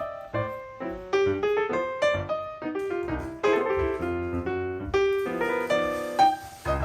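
Background music: a gentle piano melody, notes struck one after another at a steady pace.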